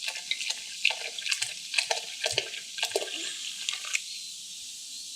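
Carbonated drink poured into a cast iron Dutch oven over ribs, splashing and fizzing. The pouring stops about four seconds in, leaving a steady fizz.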